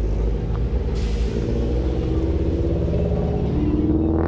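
Car engine running, its pitch climbing over the last second as it revs up. A brief hiss sounds about a second in.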